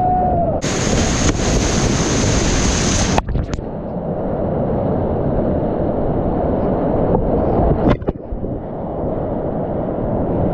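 Whitewater rapids rushing and churning around a kayak, close up and loud, with wind and water buffeting the action-camera microphone. There is a harsher hiss for a couple of seconds near the start and a brief break about eight seconds in.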